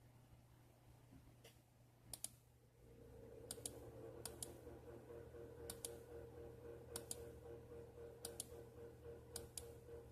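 Faint, sharp clicks from operating a computer, mostly in quick pairs about every second and a half. A low steady hum comes in about three seconds in.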